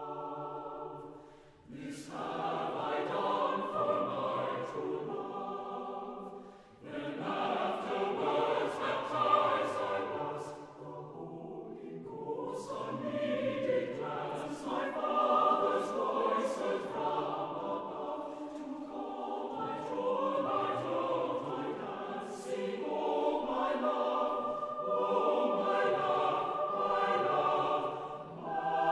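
Choral music: a choir singing long, sustained phrases, with brief breaks between phrases about a second and a half and about six and a half seconds in.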